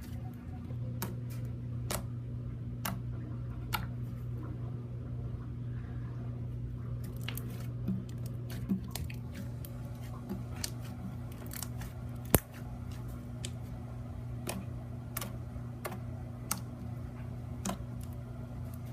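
Hands squishing and pressing glitter-glue slime for ASMR: scattered small sharp clicks and pops at irregular intervals, with one louder pop about two-thirds of the way through.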